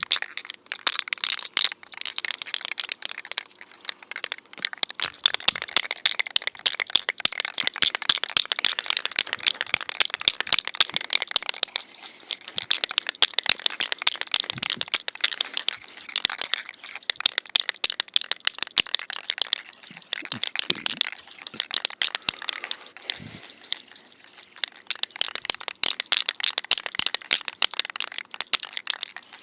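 Aerosol can of Krylon paint-and-primer spray paint being shaken hard, its mixing ball rattling rapidly inside the can to mix the paint before spraying. The rattling eases off briefly a couple of times.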